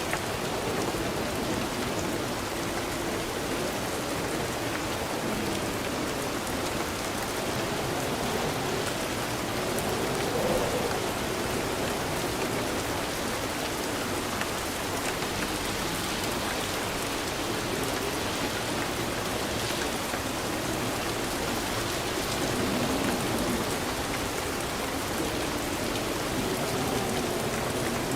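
Steady rain falling, a continuous even hiss of drops with no breaks or thunderclaps.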